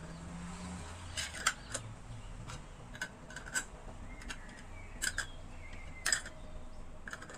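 Screw-on lids set one by one onto filled glass jars and turned loosely on, making a string of sharp clicks and taps as each lid meets a jar rim; the loudest comes about six seconds in.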